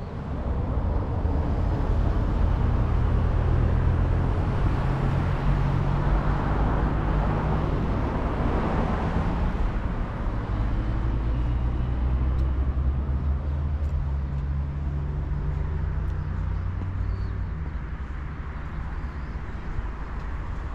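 A motor vehicle's engine rumbling steadily, with a swell of road or engine noise around the middle that fades toward the end, as of a vehicle running or passing close by.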